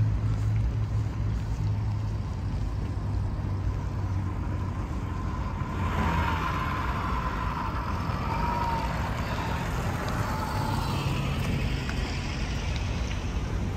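Traffic on a residential street: a steady low engine hum at first, then passenger cars driving past, with tyre and engine noise rising about six seconds in and another car coming by near the end.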